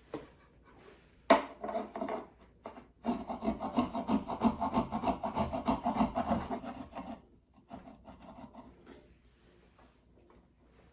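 Fresh ginger being prepared by hand: a sharp knock and clatter about a second in, then a fast, even run of scraping strokes for about four seconds that trails off.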